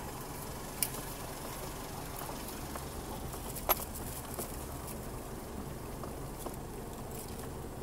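Vehicle engine running at low speed, heard from inside the cabin as a steady low hum, while the tyres crackle and tick over a rough dirt track strewn with dry debris. There are two sharp clicks, one about a second in and a louder one about halfway.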